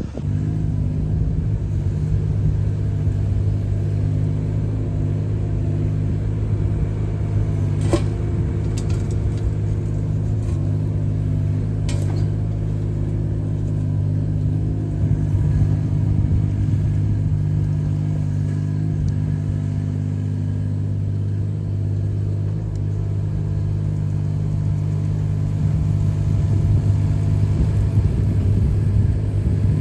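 Carter CT12BU mini excavator's Yanmar diesel engine running steadily while the machine digs and scrapes with its hydraulics. There are two sharp knocks about 8 and 12 seconds in, and the engine gets a little louder near the end.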